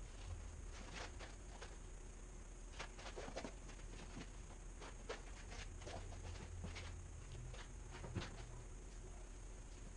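Faint, irregular light clicks and taps, a few a second, over a steady low hum.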